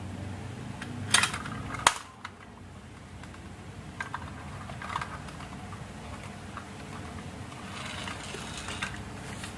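Marbles rolling and clacking along a marble run track: two sharp clicks about a second in, then scattered lighter ticks and a short stretch of quick rattling near the end.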